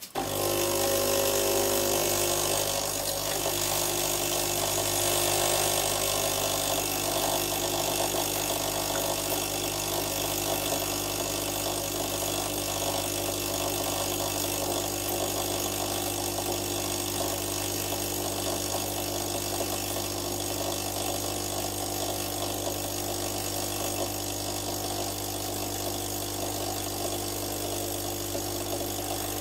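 Tchibo Cafissimo Mini capsule coffee machine brewing: its vibration pump buzzes steadily with a low hum while coffee streams into the cup. It starts suddenly at the opening.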